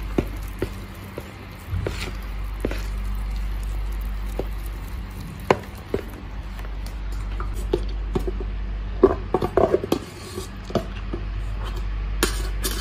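Scattered light taps and clicks of kitchen utensils being handled over a steady low hum, with a quick run of clatter about nine seconds in and another near the end.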